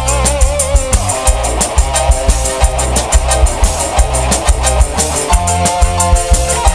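Lively band music accompanying a seni burok dance troupe: a steady, driving drum beat over heavy bass, with a wavering melody line above.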